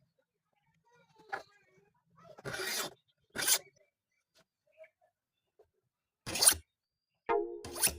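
Four short rasping strokes, like filing or rubbing, spaced a second or more apart. Music with steady held notes starts near the end.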